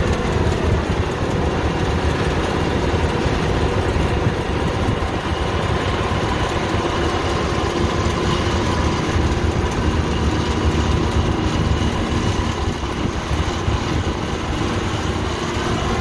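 Combine harvester engine running steadily as it cuts ripe rice, a continuous even drone.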